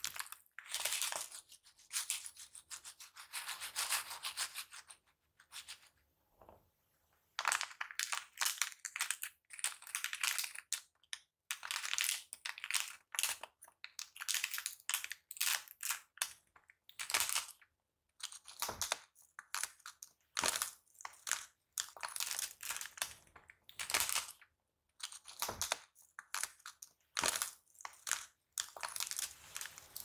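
Glossy slime being worked with the fingers: dense crackling and popping as air pockets squish out, in quick irregular bursts, with a short pause a few seconds in.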